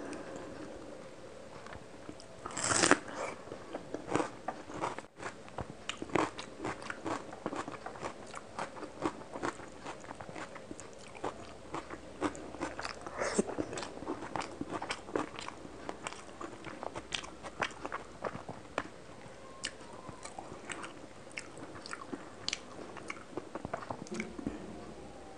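Close-miked chewing of rice and fish curry eaten by hand: a dense run of wet mouth clicks and smacks, several a second, with one louder noisy burst about three seconds in.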